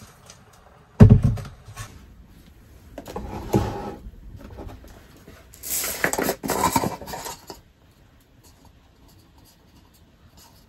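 Handling noises at a wooden table as a plastic rice container and a mess tin are moved about: a heavy thump about a second in, then a couple of stretches of rubbing and clatter.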